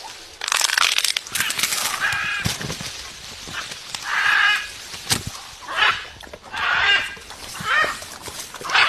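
Parrot giving harsh, raspy squawks, one about every second from a few seconds in, with scratchy crackling in the first couple of seconds.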